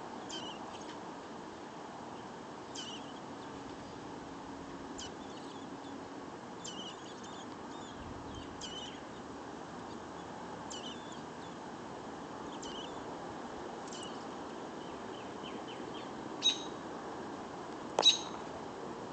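Robin chirps: short, high calls repeating every second or two, with two louder ones near the end, over a steady background hiss.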